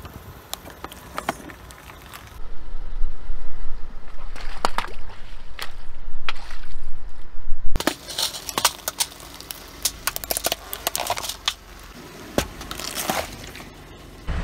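A car tyre slowly rolling over and crushing objects: plastic bottles of liquid splitting and squirting, a plastic candy toy cracking, and a watermelon bursting. It comes as a run of sharp cracks, crackles and crunches, densest in the middle.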